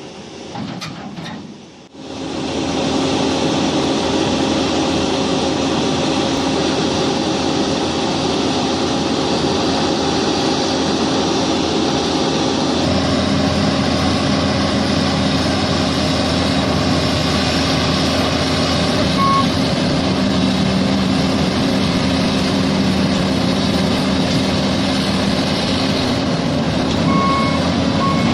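Diesel engine of heavy construction machinery running steadily, starting about two seconds in. Short electronic warning beeps sound once in the middle and repeat near the end.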